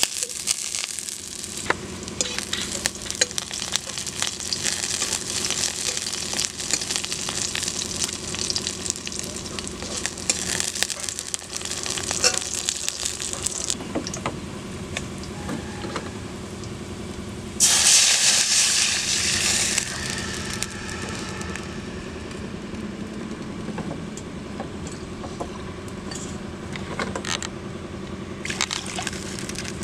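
Oil sizzling in a steel wok as chopped pieces fry, with a steel spatula scraping and clicking against the pan. Past the middle, a sudden loud hiss lasts about two seconds as liquid hits the hot oil, then settles to a quieter, steady simmer.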